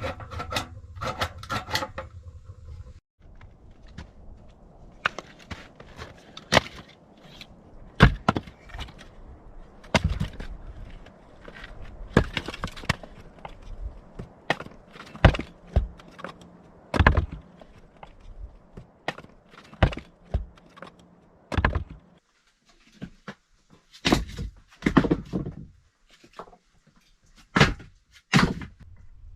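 Irregular wooden knocks and thuds, some sharp and loud, coming at uneven gaps: wood being handled and worked.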